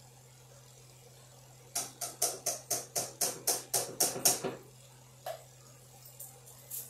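A quick run of about a dozen sharp taps, roughly four a second and growing louder, stopping after a couple of seconds. A single tap follows, and a utensil knocks against the skillet near the end.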